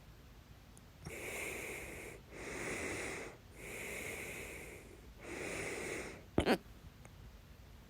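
A woman's hiccups: four long, airy breaths, then one loud, sharp hiccup near the end.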